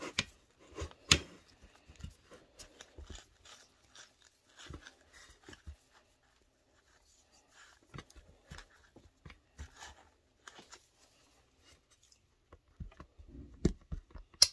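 Scattered soft taps, clicks and rustles of fingers pressing pie crust dough into the cups of a muffin tin, with a quieter stretch about halfway through and more taps near the end.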